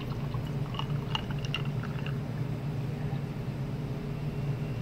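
Canned strawberry milk being poured over ice into a glass: the ice cubes crackle and click for the first couple of seconds, over a steady low hum.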